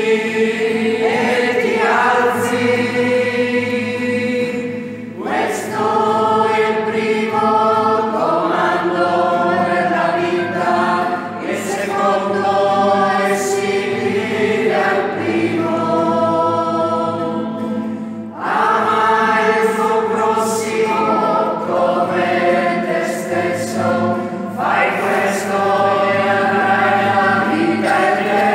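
A small group of men and women singing a hymn together to guitar accompaniment, in long held phrases with brief breaks between them. The voices echo in the church.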